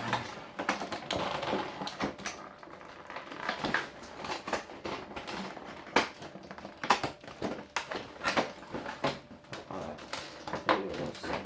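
Hard plastic parts of a helmet standings display being handled: irregular clicks, taps and knocks with rustling between them.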